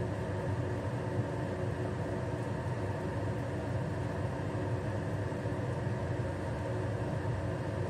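Kitchen range hood fan running steadily over the stove: an even hum with a whir.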